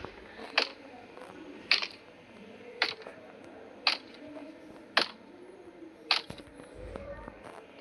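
A sharp click repeating at an even pace, about once a second, six times, then a few weaker ticks near the end.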